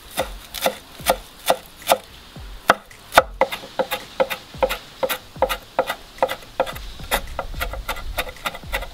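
Chef's knife finely chopping fresh parsley on a wooden cutting board: a quick run of sharp knocks of the blade striking the wood, speeding up in the second half.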